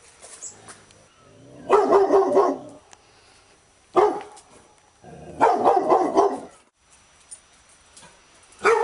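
Labrador retriever barking in bouts: a quick run of barks about two seconds in, a single sharp bark at four seconds, another quick run a little later, and one more bark at the very end.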